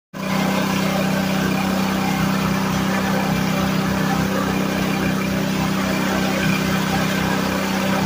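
Small single-cylinder engine of a LandWorks drum chipper running steadily at a constant speed on wood gas, the chipper turning with no wood being fed.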